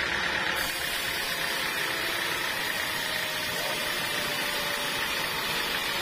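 Band sawmill running with its blade cutting lengthwise through a teak log. A steady, even rasp of the blade in the wood over the machine's drive noise.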